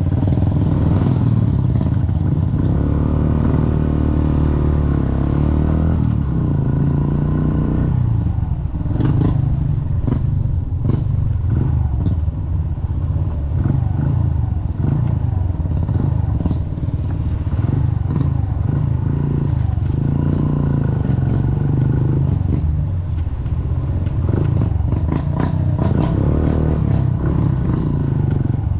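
Motorcycle engine running under way, its pitch rising and falling with the throttle, with frequent clattering knocks as the bike rides over a rough dirt road.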